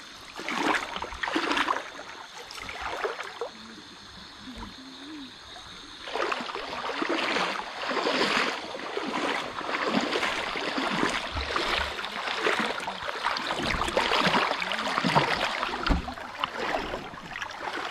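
Irregular splashing and sloshing of shallow stream water, as of someone wading and groping through it for water snails, over the stream's running trickle. A few splashes come first, then a quieter stretch, then nearly continuous splashing from about six seconds in.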